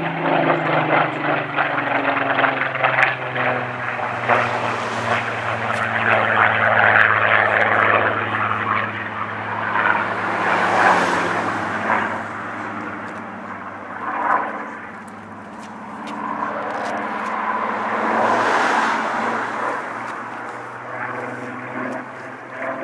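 Supermarine Spitfire's V12 piston engine on a display pass. The engine note drops in pitch as the aircraft goes by at the start, then the engine sound swells and fades as the fighter turns and comes round again, growing fainter near the end.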